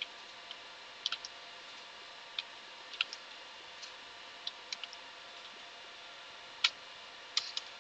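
Computer keyboard keys clicking one at a time at an irregular pace as text is typed, with the loudest strokes near the end, over a faint steady hum.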